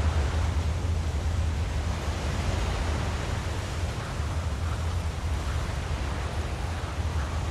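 Steady deep rumble under a rushing, wind-like noise: a film teaser's sound-design ambience.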